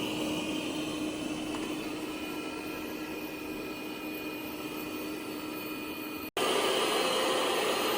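Lefant M3 robot vacuum-mop running: a steady whir with a constant hum, slowly growing quieter. About six seconds in the sound cuts out for an instant and comes back louder.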